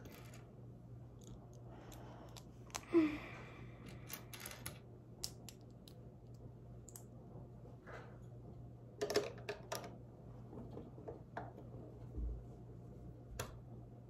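Lego pieces being handled and pressed together: scattered light plastic clicks and rustles. There is a louder rustling cluster about three seconds in and another group of clicks around nine seconds, over a steady low hum.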